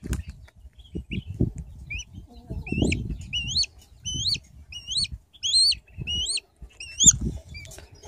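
Young shikra chick giving a run of thin, high food-begging calls as it is hand-fed, about two a second, each sliding up and then dropping, starting about two seconds in. Low knocks and rustles from handling run underneath.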